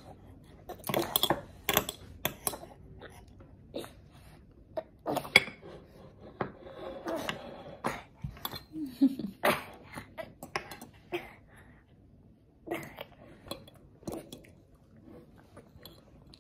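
Fork and spoon clicking and scraping against a bowl and plate as a toddler eats, in scattered short clinks. A brief vocal sound from the child a little past the middle.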